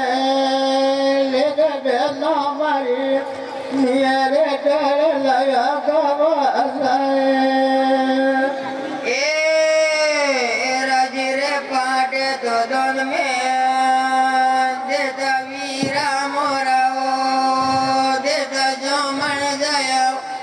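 Mewari Gavri folk song sung into a microphone over a steady held drone note, heard through a PA system. About nine seconds in, one long sung note swoops up and falls back.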